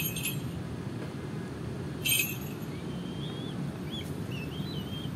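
Steady low outdoor rumble with a brief hiss about two seconds in, and a few short, wavering bird chirps in the second half.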